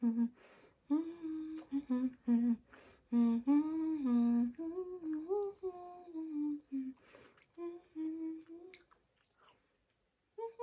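A woman humming a tune with her mouth closed, in short held and gliding phrases, trailing off about nine seconds in.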